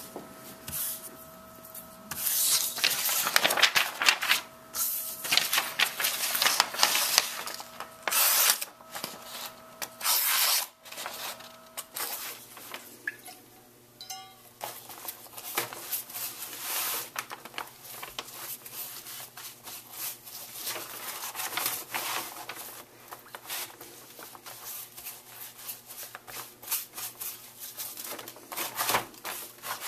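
A brush scrubbing neatsfoot oil onto a veg-tan leather knife sheath: repeated scratchy brushing strokes, with a louder, denser stretch of rubbing and handling noise in the first third, over a faint steady hum.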